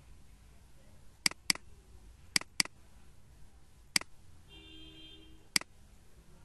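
Computer mouse clicking: two quick double-clicks, then two single clicks, with a faint brief tone in between.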